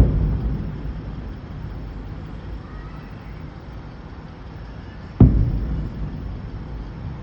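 Aerial fireworks shells bursting: the low rumble of a burst just before dies away, then a sharp boom about five seconds in, followed by a long, low rolling echo.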